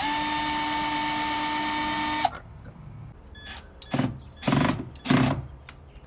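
Hyper Tough cordless drill driving a screw into a door frame, running at a steady high whine for about two seconds and then stopping abruptly as the screw seats. A few short, louder knocks follow about two seconds later.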